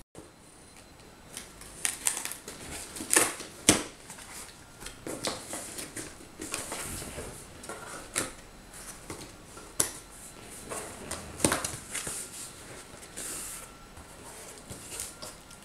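Cardboard box being handled and its flaps opened: irregular rustles, scrapes and taps of cardboard, with two sharp knocks about three and a half seconds in.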